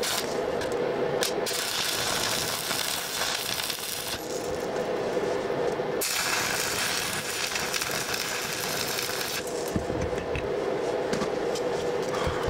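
Stick welding arc sizzling on the steel frame in two runs of a few seconds each, the second starting about six seconds in, with a few sharp clicks around them and a steady hum underneath.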